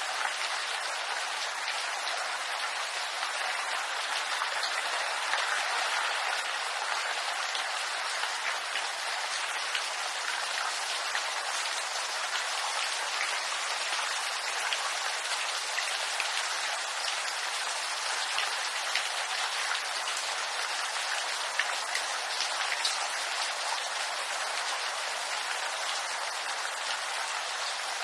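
Steady rain falling on bamboo leaves, an even hiss of rainfall with many small, separate drop ticks scattered through it.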